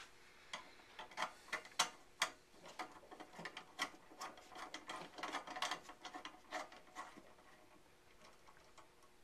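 Irregular small clicks and light rattling of a lampshade being seated on its wire harp and the finial screwed down onto the threaded post. The clicks are busiest through the first seven seconds and die away near the end.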